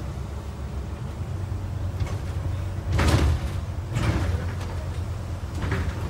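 Double-decker bus heard from inside on the upper deck: a steady low engine and road rumble while it drives. Two short knocks of the bodywork come about three and four seconds in, the first one the loudest.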